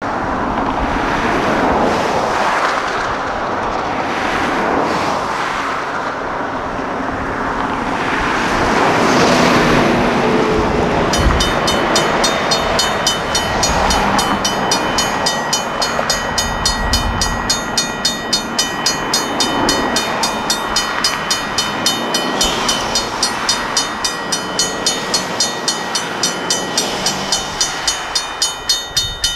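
Road traffic passing. About eleven seconds in, a railroad crossing warning bell starts ringing in a fast, even rhythm as the crossing signals activate for an approaching train.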